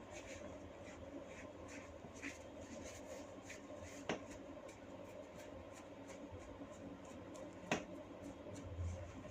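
Hair cracking on long hair: strands tugged and rubbed between the fingers give a string of faint crackles, with two sharper cracks, about four seconds in and again later on.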